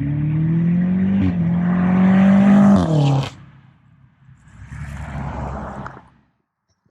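BMW F90 M5 Competition's twin-turbo V8, with aftermarket downpipes and a Stage 2 tune, pulling hard, its pitch climbing steadily for about three seconds. Near the three-second mark the pitch drops sharply and the engine note cuts off. A broader rush of noise follows and fades out about six seconds in.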